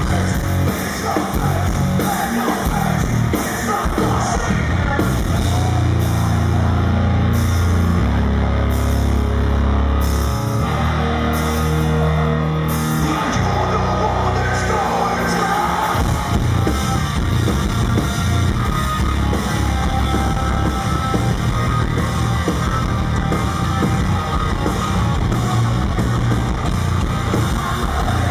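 Rock band playing live: heavy rock with bass guitar, electric guitar and drum kit, with long held low bass notes about a third of the way in.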